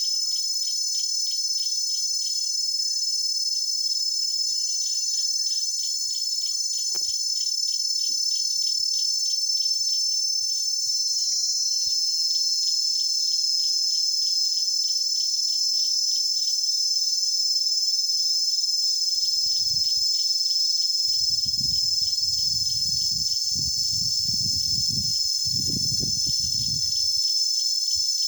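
Cicadas buzzing in a steady, high-pitched chorus, pulsing at first; about eleven seconds in, a louder continuous buzz joins. Faint bird calls come in the first few seconds, and a low rumble comes and goes in the last third.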